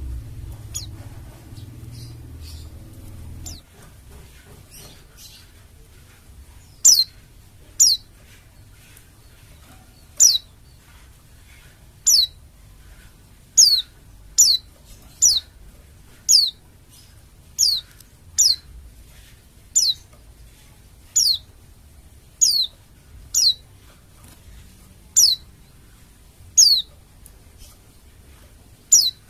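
A pleci dakun Bali (white-eye) calling with sharp, high notes, each sliding steeply downward. The notes repeat about once every second or so from about seven seconds in, after a stretch of faint chirps and a low rumble.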